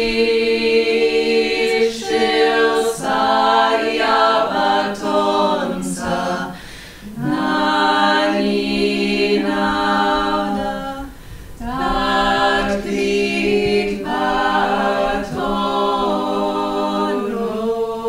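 A small a cappella vocal ensemble singing a Georgian polyphonic song: low notes held as a steady drone while the upper voices move above them, with short breaks between phrases about seven and eleven seconds in.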